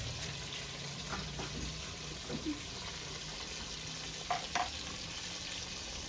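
Battered fish pieces deep-frying in hot oil: a steady sizzle, with a few faint short sounds over it about a second, two and a half seconds and four and a half seconds in.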